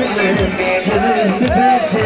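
Halay dance music: a bending melody over a steady drum beat of about two strokes a second.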